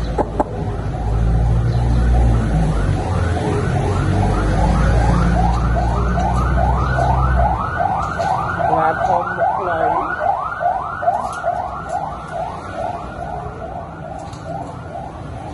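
A siren sounding in quick rising sweeps, about three a second, over a low rumble that stops about halfway through.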